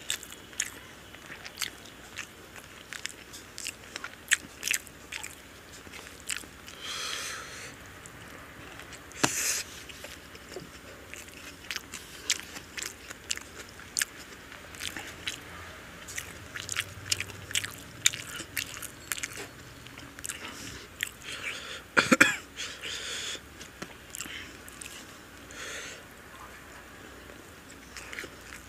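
Close-miked eating sounds: a man chewing biryani with his mouth open, a steady stream of wet smacks and clicks, with a few longer, louder bursts.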